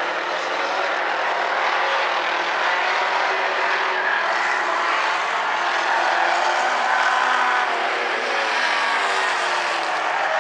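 Engines of a pack of small four-cylinder compact stock cars running at racing speed around an asphalt oval. Several engine notes overlap and shift in pitch as the cars accelerate through the turns and pass.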